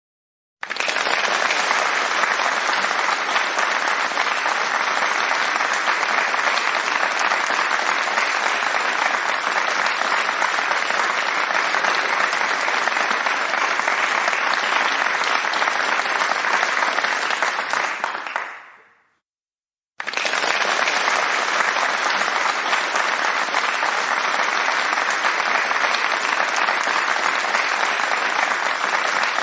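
Applause, a steady dense clapping that starts abruptly, fades out about 18 seconds in, then starts again abruptly a second later.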